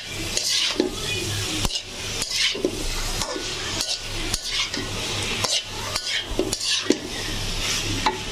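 Metal spatula stirring taro stolons (kochu lati) through spice paste in a metal karahi, scraping and clinking against the pan in repeated strokes about once a second, over the sizzle of the frying masala.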